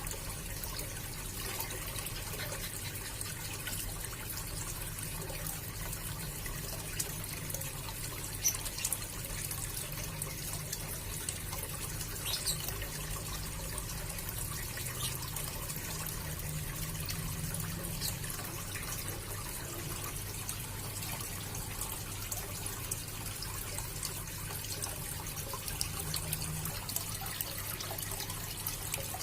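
Water trickling steadily into a small fish pond, with a low steady hum underneath and a few small clicks.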